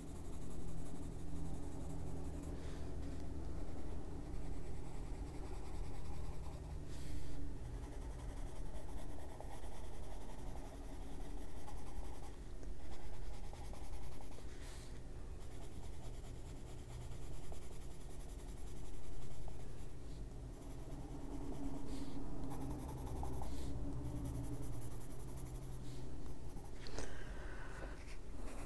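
Faber-Castell Albrecht Dürer coloured pencil scratching across coloring-book paper in repeated shading strokes, the sound swelling and fading with each pass.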